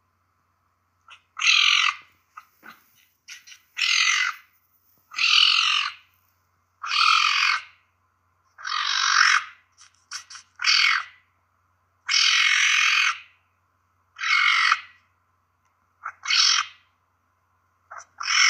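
Caracal calling: a series of about ten harsh, raspy calls, each under a second long, repeated roughly every one and a half to two seconds.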